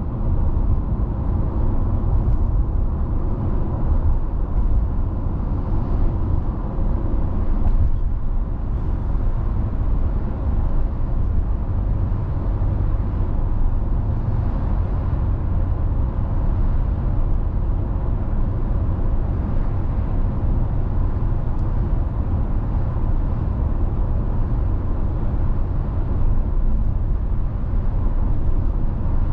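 A car driving along a road, heard from inside the car: a steady deep rumble of tyres on the road surface and the running engine.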